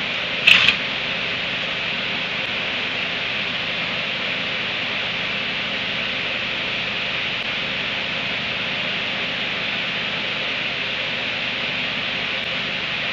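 Steady hiss, with one brief, sharp double sound about half a second in.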